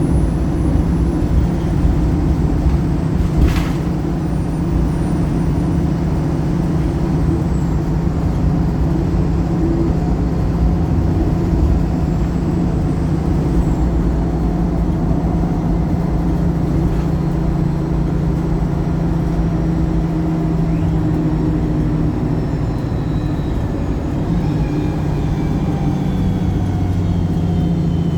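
Wright Pulsar single-deck bus engine running steadily under way, with a single sharp click about three and a half seconds in. Near the end a faint whine falls in pitch.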